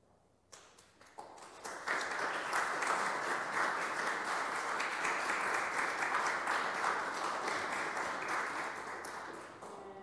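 Audience applauding: a few scattered claps about half a second in swell into steady applause by about two seconds, which fades near the end.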